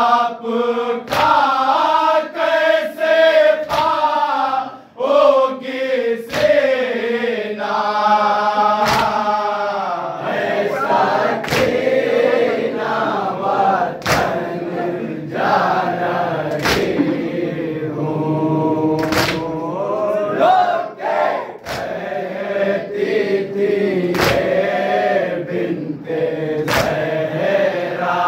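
Male chorus chanting a nauha, a Shia Muharram lament, in unison. Under the singing the mourners' palms strike their chests (matam) in a steady beat, about one slap every second and a quarter.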